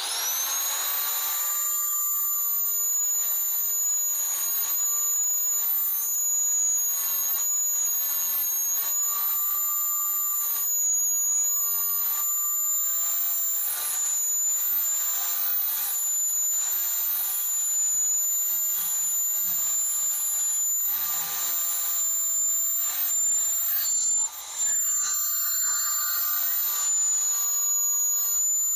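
Small electric angle grinder spinning up, then running steadily with a high whine as its disc grinds new teeth into the welded-up sector gear of a power-window regulator. Its level dips for a moment near the end.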